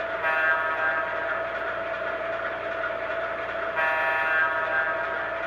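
Electronic horn of a model diesel locomotive's onboard sound system, sounded in two blasts about a second long, roughly three and a half seconds apart, over the train's steady running sound on the track.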